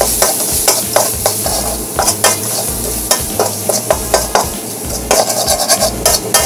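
A spatula stirring and scraping against the pan, with irregular knocks several times a second, through a steady sizzle of chili paste, onion and spices frying in hot oil.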